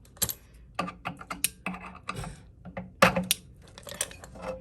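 Irregular clicks and knocks of refrigerator parts being handled and fitted back into place during reassembly, the loudest knock about three seconds in.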